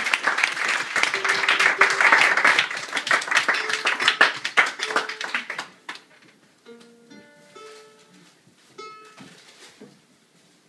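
Audience applause, loud for about six seconds and then dying away. After it come a few sparse plucked notes on a mandolin.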